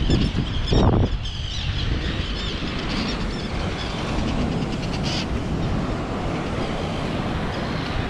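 Colony seabirds giving repeated short, high alarm calls while dive-bombing an intruder near their nests. Wind rumbles on the microphone throughout, with a couple of thumps in the first second.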